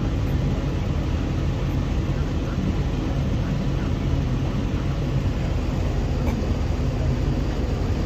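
Steady low rumble of a Case International 1660 combine harvester working close by, heard from inside a pickup cab together with the truck's own running.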